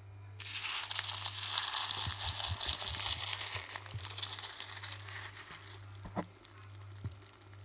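Milk poured from a shaker bottle onto a bowl of puffed rice cereal: a splashing pour that starts suddenly about half a second in, full of fine crackles and pops from the cereal, easing to quieter crackling for the last couple of seconds.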